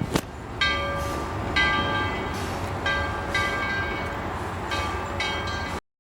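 Narrow-gauge steam locomotive running, its whistle sounding about five short blasts of several tones together over the train's steady rumble. A sharp click comes right at the start.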